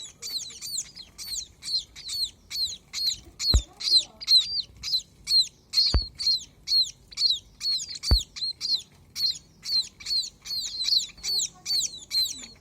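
Baby birds (nestlings) cheeping non-stop, short high-pitched chirps about four a second. Three brief low thumps sound among them.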